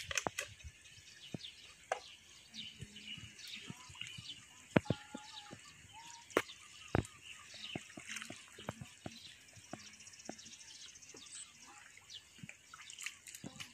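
Scattered slaps and splashes of muddy water as someone gropes by hand in a shallow pond, with birds chirping.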